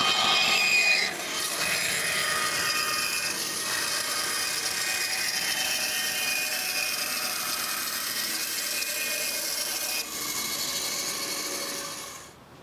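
Bandsaw cutting through a thick curved piece of wood for a boat frame: a steady, high whining hiss of the blade in the timber, loudest in the first second, fading out near the end.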